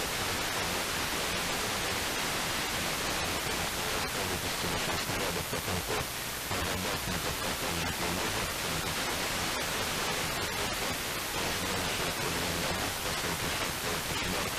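Steady FM radio hiss from an RTL-SDR receiver tuned to 67.97 MHz: the sporadic-E signal from Radio Rossii has faded down into the noise, leaving only faint traces of the broadcast beneath the static.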